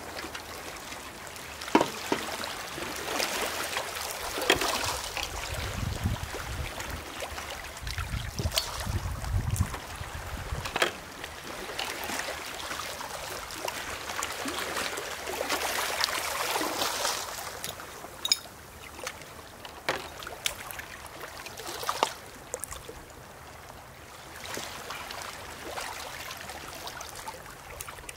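Shallow sea water washing among shore rocks, with water poured from a metal bucket through a plastic funnel into a glass bottle near the start and again near the end. A few sharp knocks of glass and metal stand out above the water.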